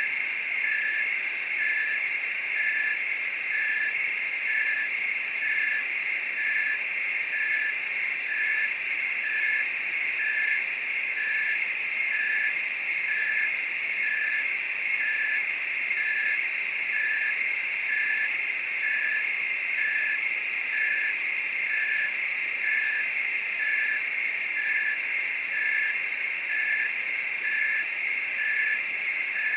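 Night chorus of crickets and frogs: a steady, dense, shrill trill with a short call repeating evenly, about three times every two seconds.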